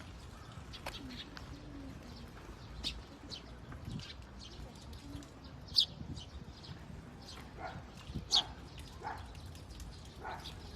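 Birds chirping: many short high chirps, a few of them loud and sharp, over a faint low cooing.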